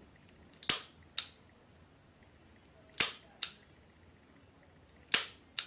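Smith & Wesson Airweight .38 revolver dry-fired on snap caps: three sharp metallic clicks of the hammer falling, about two seconds apart. Each is followed about half a second later by a softer click.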